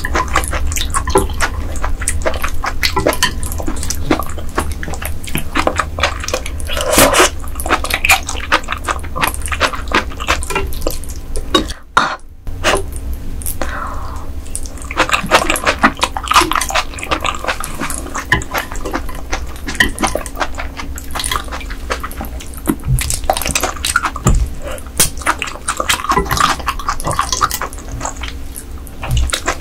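Close-miked eating sounds of raw ice goby sashimi being chewed and slurped: wet, squishy mouth noises and sharp clicks. The sound drops out briefly about twelve seconds in.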